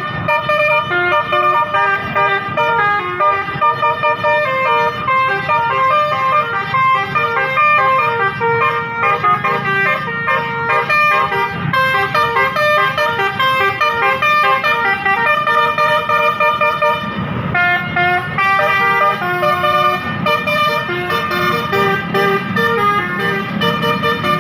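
Bus 'telolet' musical air horn (Basuri) playing a continuous melody of short stepped notes that jump between pitches, with a brief change in the pattern about two-thirds of the way through.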